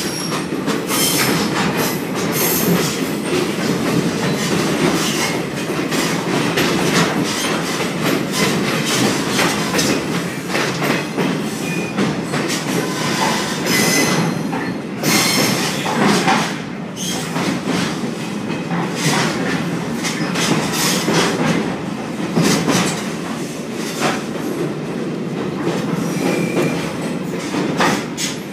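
Caboose rolling along the track, heard from inside the car: steady running noise with wheels clacking over rail joints and frequent knocks and rattles, and wheel squeal now and then.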